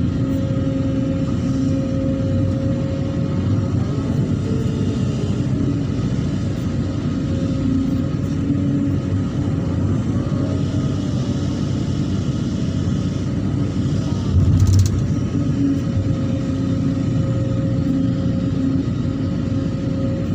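Hydraulic excavator's diesel engine running steadily while digging, with a steady tone over the engine rumble. A single heavy thump sounds near the three-quarter mark.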